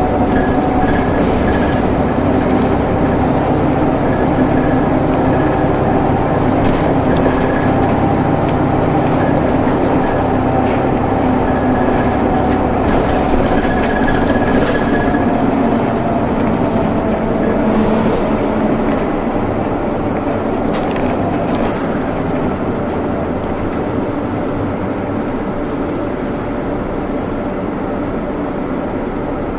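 City bus on the road, heard from inside the passenger cabin: steady engine and road noise, getting gradually quieter over about the last ten seconds.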